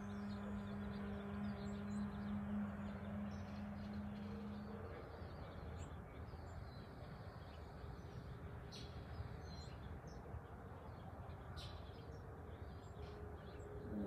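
A woman's voice holding a long, steady "om" chant that stops about five seconds in. Faint outdoor background with a few bird chirps follows, and a new "om" begins at the very end.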